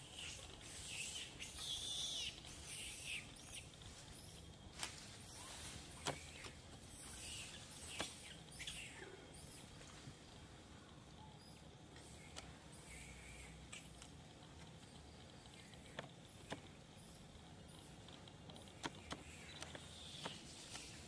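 Faint rustling of leaves and thin branches as macaques climb and wrestle in a tree. Scattered sharp clicks come every few seconds, and the rustling is loudest in the first few seconds.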